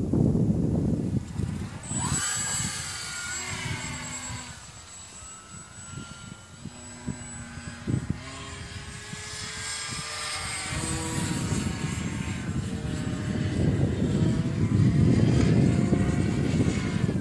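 Model airplane's motor and propeller whining overhead, the pitch sliding up and down as the plane flies past and turns. Wind buffets the microphone near the start and again toward the end.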